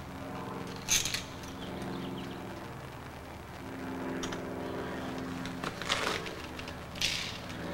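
Metal clicks and scrapes of lock hardware being handled and fitted, a few sharp ones about a second in and again near the end, over a steady low hum.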